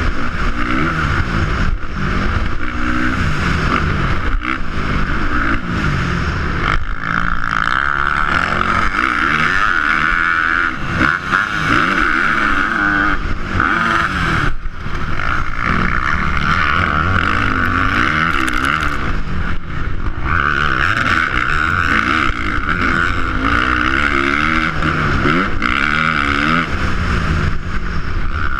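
Dirt bike engine ridden hard on a motocross track, revving up and dropping back over and over as the rider works the throttle and gears, heard loud and close from a camera mounted on the bike.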